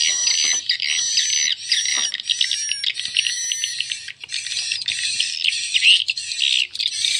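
Recorded swiftlet roosting call (the 'inap' lure sound) played loudly through a horn tweeter: dense, fast, high-pitched twittering chirps with no low end.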